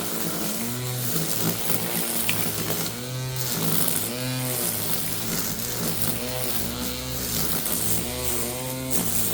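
Worx 20V cordless string trimmer in lawnmower mode running, its electric motor whine dipping and rising in pitch again and again as the spinning line cuts into grass. It is running on a nearly flat battery.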